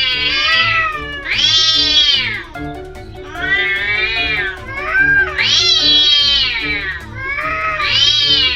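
Domestic cats yowling at each other in a standoff, the warning calls before a fight: about five long, drawn-out yowls that waver up and down in pitch, with background music underneath.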